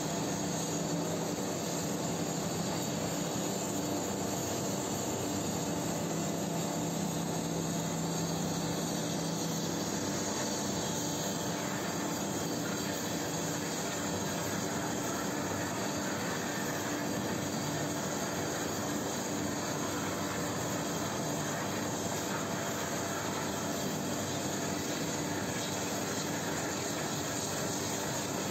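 Steady industrial roar of steel plant machinery around a ladle of molten steel, even in level throughout, with a low hum that drops out about ten seconds in.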